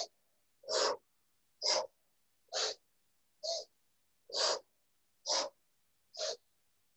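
A woman's short, forceful Pilates breaths during criss-cross crunches, one about every second, eight in all, in the cued pattern of two short inhales and two short exhales.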